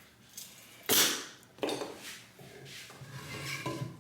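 Wooden boards being handled: a sharp wooden clack about a second in, another soon after, then rubbing and shuffling of wood.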